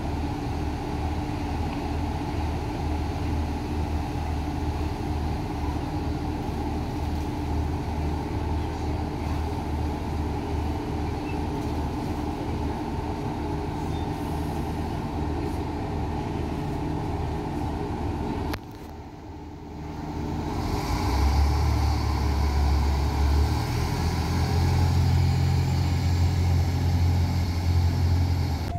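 Irish Rail 29000 class diesel multiple unit running at the platform: a steady diesel idle with a pulsing low beat for the first two-thirds. After a break about 18 seconds in, a louder, deeper engine note comes in and steps up in pitch a few seconds later as the engines rev.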